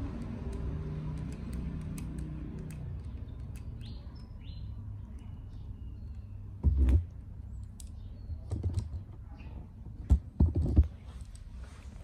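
Small clicks and taps from handling a toy RC helicopter and turning a screwdriver in its rotor head, with a few louder knocks in the second half.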